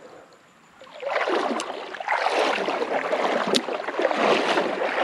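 Creek water splashing and sloshing around a wading angler's legs, starting suddenly about a second in and running on loudly, with a couple of sharp clicks.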